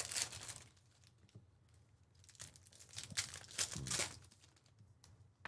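Trading-card pack wrappers crinkling and tearing as packs of football cards are opened by hand, in two bouts: one at the start and a longer one in the middle.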